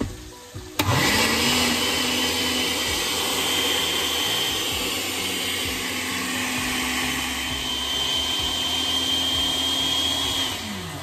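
Countertop blender running steadily, puréeing roasted tomatoes, onion, garlic, dried guajillo and pasilla chiles and water into a sauce. The motor spins up about a second in and winds down just before the end.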